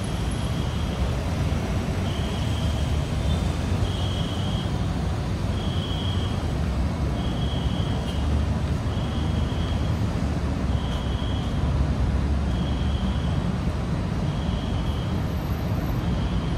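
Dense city road traffic, a steady low rumble, with a high-pitched tone that pulses on and off about every two seconds.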